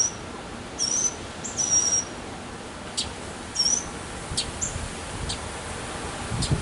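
Northern mockingbird singing: short, high whistled notes repeated about once a second, then a few sharp clicking notes spaced a second or so apart in the second half.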